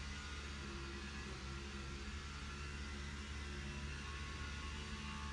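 Steady low machine hum with a faint whir, unchanging throughout.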